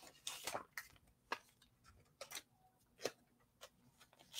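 Faint handling noise: a few scattered light clicks and rustles as folded leggings and their paper tag are handled on a table.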